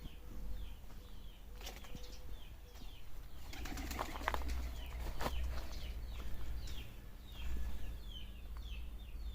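A bird repeating short, falling chirps two or three times a second. About four seconds in there is a brief flurry of rapid rustling, like wings flapping.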